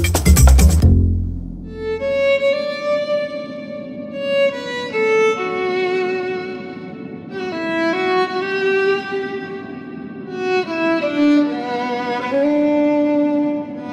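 Background music: a loud beat-driven track cuts off about a second in, and a slow violin melody of long held notes follows.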